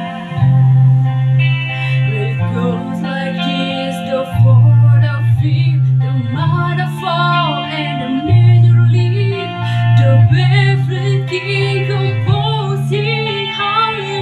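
A song: singing voices over a guitar accompaniment, with held bass notes changing about every two seconds.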